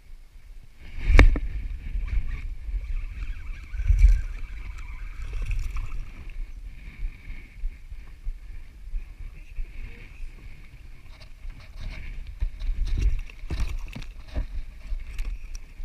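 Knocks and bumps on a kayak, the loudest a sharp knock about a second in, over low rumbling and water noise. A steady high-pitched drone runs underneath.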